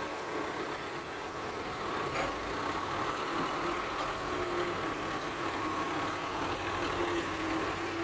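Heavy machinery running steadily, the diesel engine of a dump truck or excavator, with a faint wavering whine over the engine noise.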